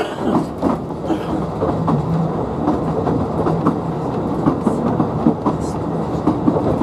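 Talyllyn Railway narrow-gauge train running along the track: a steady rumble with many irregular clicks and knocks from the wheels on the rails.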